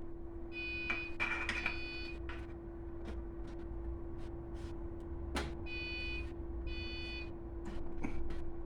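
Hands fitting a diesel heater fuel pump into its rubber mounting: three drawn-out rubbery squeaks, the first about half a second in and two close together near the end, among light clicks and taps of handling, over a steady hum.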